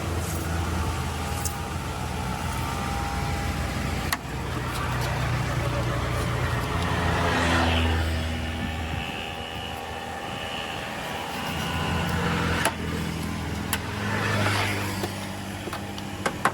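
Motor vehicle engines running, with traffic swelling louder twice as vehicles pass, and a few sharp clicks.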